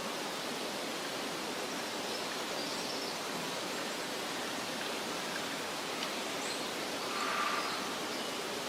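Rushing water of a waterfall: a steady, even hiss of falling water, with a brief swell about seven seconds in.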